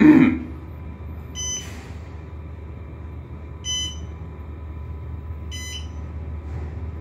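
Otis traction elevator car descending: its floor-passing chime beeps three times, about two seconds apart, one for each floor it passes, over the steady low hum of the car in travel. A brief loud low sound right at the start.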